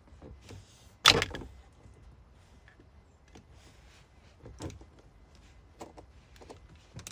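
Plastic clips and electrical connectors on a steering column being worked loose by hand: one sharp clack about a second in, then a few faint clicks and knocks.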